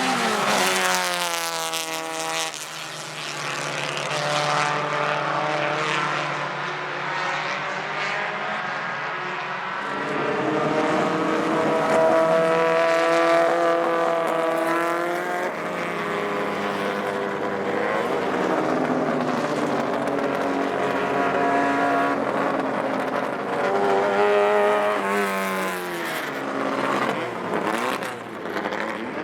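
Racing car engines passing at speed on a circuit, one after another. The engine note drops sharply just after the start as a car goes by, holds fairly steady through the middle, then climbs and falls again near the end as another car passes.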